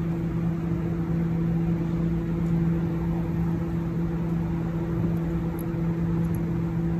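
Steady machine hum: a low drone with a higher tone above it, over an even rushing noise.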